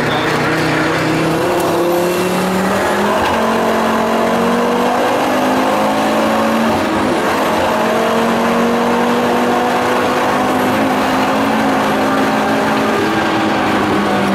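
Tuned 550+ hp Volvo 850 T5-R's turbocharged five-cylinder engine under hard driving, heard from inside the cabin. Its note climbs and dips with throttle and gear changes over steady road and tyre noise.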